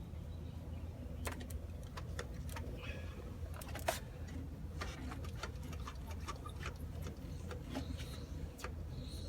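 Truck diesel engine running at a low, steady idle, with irregular sharp clicks and knocks over it; the loudest knock comes about four seconds in.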